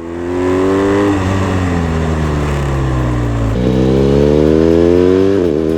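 BMW R1250RS's 1,254 cc boxer-twin engine under way, recorded on a phone: the revs fall steadily for about three seconds, jump up sharply as it drops a gear, then climb again under acceleration, with a quick break for a gearshift near the end.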